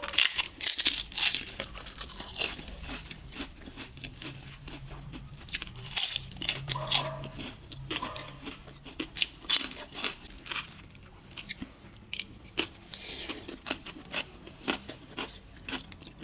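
Crunching and chewing of avocado toast: many short, crisp crunches of toasted bread, coming irregularly as it is bitten and chewed.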